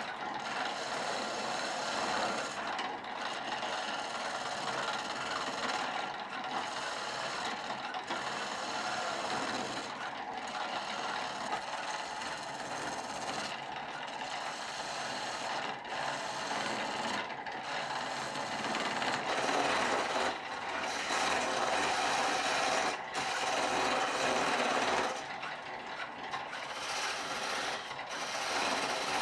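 Steel turning tool cutting a spinning hardwood chisel-handle blank on a treadle lathe, a continuous scraping shave with short dips every couple of seconds.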